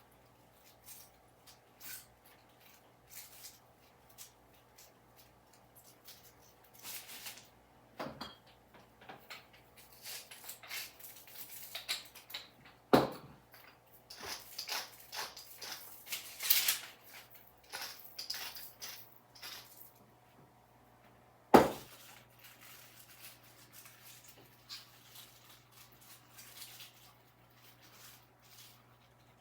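Food being handled on a kitchen worktop: light rubbing, rustling and clicking as cabbage wedges are buttered and seasoned, with two sharp knocks, one about halfway through and one later.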